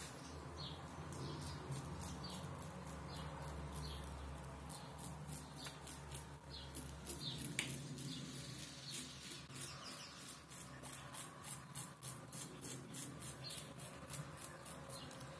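Kamisori-style straight razor scraping stubble through shaving lather. Short rasping strokes come sparsely at first, then quick and rhythmic, several a second, from about five seconds in.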